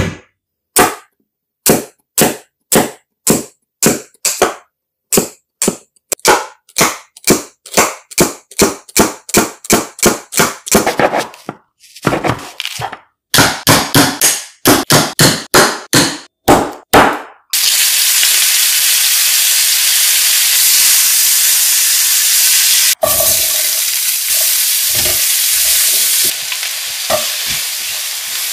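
Steady hammer blows, about two to three a second, driving a screwdriver and a metal blade through carrot and onion into a wooden chopping board. About two-thirds of the way through, this gives way to chopped vegetables sizzling in a frying pan as they are stirred.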